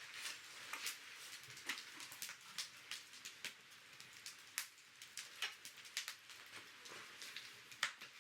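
Wood campfire crackling, with irregular sharp pops and snaps over a soft hiss.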